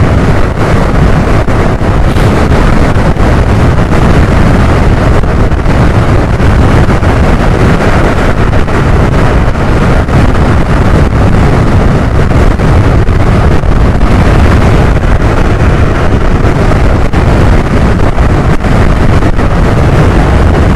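Loud, steady wind buffeting on the microphone of a scooter riding at highway speed, about 77 km/h, with scooter and road noise underneath as a constant low rumble.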